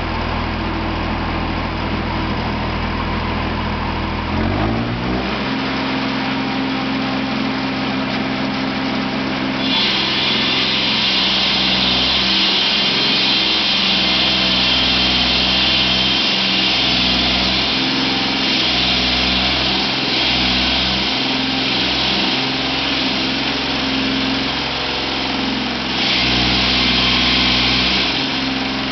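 Engine of an EDT Eurodima FS 450 walk-behind floor saw (joint cutter) running, speeding up about four seconds in. From about ten seconds in, its water-fed blade cuts a groove in the floor, a loud steady hiss over the engine that swells again near the end.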